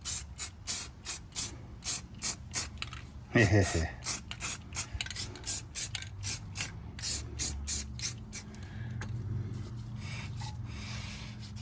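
Quick, rhythmic rasping strokes, about three or four a second, from hand work on the truck's front brake and hub area. Near the end they give way to a steadier hiss.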